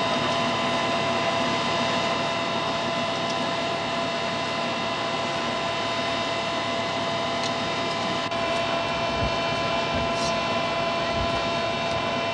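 A passenger ship's engine running with a steady drone and hiss, unchanging throughout.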